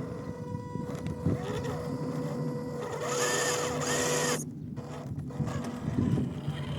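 Small electric motor and gearbox of an MN128 1/12-scale RC crawler whining steadily as it works over an obstacle. The whine cuts out briefly about four and a half seconds in, then picks up again.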